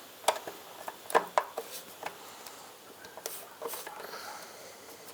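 Scattered light clicks and taps of a low-profile socket and hand tools against the license-plate mount bolts, irregular and a few per second at most.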